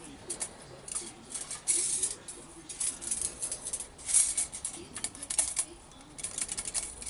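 Several short bursts of light metallic scraping and small clicks as a thin steel feeler gauge is slid between a cylinder-boring bar's centering leaves and the cylinder wall, checking that the bar is centered in the bore.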